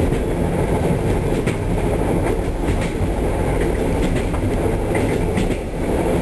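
Steady rumble of a moving passenger train heard inside the carriage, with a few faint irregular clicks from the wheels and car.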